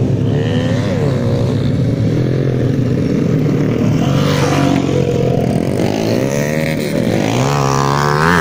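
Dirt bike engine revving as it rides past on a dirt track, its pitch rising and falling with the throttle and climbing steeply near the end.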